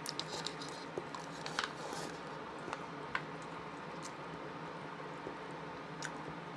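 Faint eating sounds: chopsticks clicking and scraping against a bowl of rice, with chewing. The clicks come in a cluster in the first couple of seconds, then only now and then.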